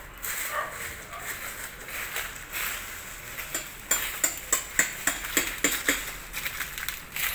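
A quick run of sharp taps or clicks, about three to four a second, starting about four seconds in.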